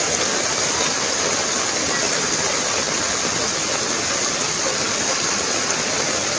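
Muddy floodwater rushing in a fast torrent through a village, a steady, unbroken rush of water noise.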